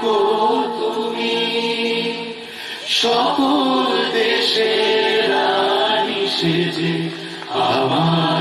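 Patriotic Hindi song: voices singing over instrumental music, with two brief lulls between phrases.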